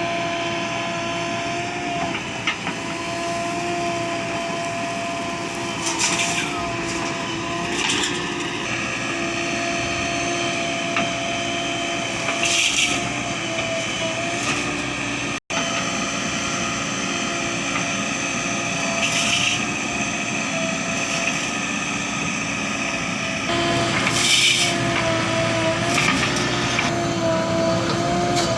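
JCB 3DX backhoe loader working: its diesel engine runs steadily under load with a steady whine, broken by several short hissing bursts.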